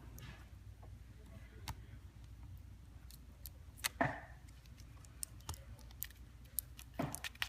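Scattered light clicks and taps of a small screwdriver and plastic tablet parts being handled, with a louder knock about four seconds in and another near the end, over a steady low hum.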